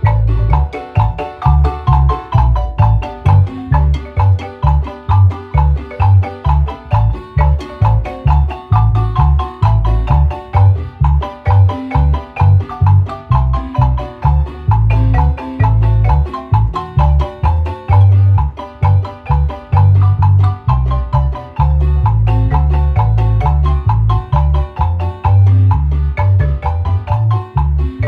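Guatemalan marimba music: quick repeated mallet notes in the middle register over a steady pulse of deep bass notes, about two beats a second.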